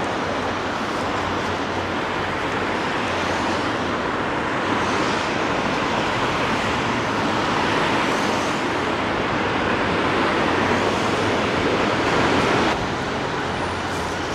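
Road traffic hissing on rain-wet streets, a steady noise that swells over several seconds and drops off suddenly near the end.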